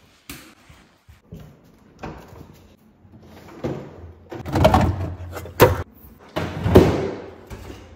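A refrigerator door being opened and shut while drinks are taken out: a few sharp clicks and knocks, with noisy rustling handling sounds in the second half.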